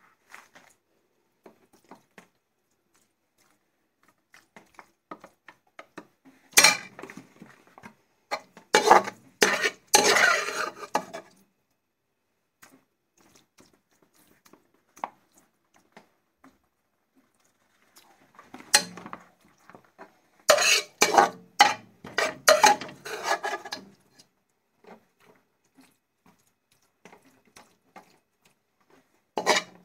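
Metal serving spoon scraping and knocking against the inside of a large metal cooking pot while scooping out cooked minced chicken. It comes in two spells of clustered scrapes and clinks, with near quiet and a few light taps between them.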